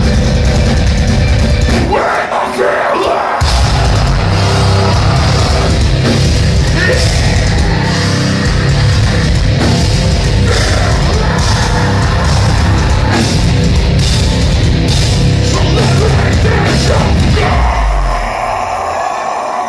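Loud heavy metal music, metalcore, with a dense, heavy low end. The bass drops out briefly about two seconds in, and near the end the low end falls away as the music thins out.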